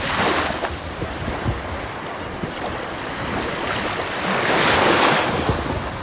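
Sea surf washing onto the beach, swelling twice, with wind buffeting the microphone.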